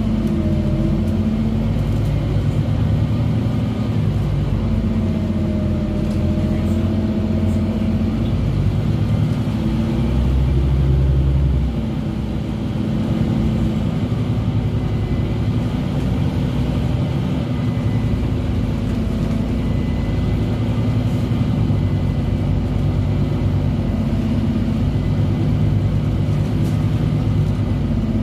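Scania Omnicity N270UD double-decker bus's diesel engine, heard from inside the passenger saloon as the bus drives along, its pitch rising and falling repeatedly through the gears. A deeper, louder drone swells about ten seconds in and drops away sharply just before twelve seconds.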